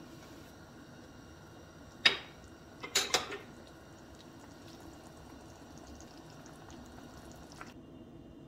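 Pot of lentil soup simmering, a steady low bubbling. A sharp knock comes about two seconds in and a short clatter of knocks about a second later.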